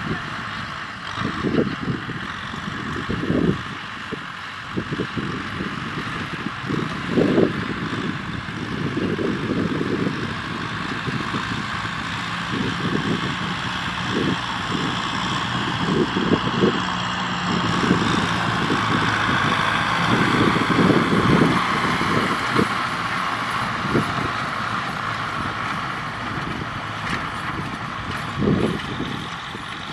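Kubota M6040SU tractor's diesel engine running steadily under load as it pulls a rotary tiller through dry field soil, with irregular low thumps throughout.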